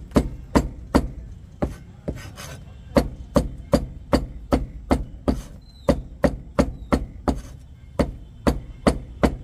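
Cleaver chopping grilled soya chaap on a plastic cutting board: a steady run of sharp chops, about two and a half a second.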